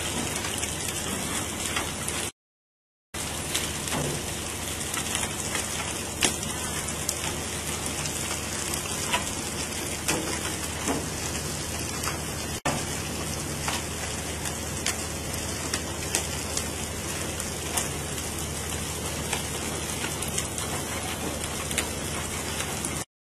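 On-deck ambience of a fishing vessel at sea: a steady rain-like hiss of wind and water with a low steady hum under it and scattered light clicks. The sound drops out completely for under a second a little over two seconds in.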